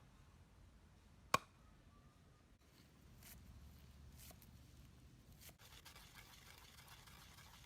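Near silence, broken by one sharp click about a second in, then a few faint clicks and a soft hiss that sets in past the middle.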